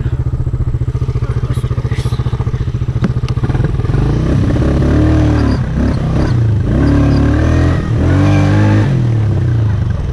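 ATV (four-wheeler) engine running steadily at low revs, then, about four seconds in, revving up and dropping back several times in a row.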